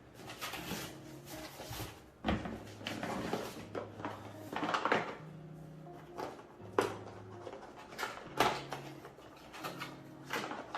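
Cardboard box and packaging being handled and rummaged through: rustling with a few sharp knocks, the loudest about two, seven and eight and a half seconds in. Faint background music runs underneath.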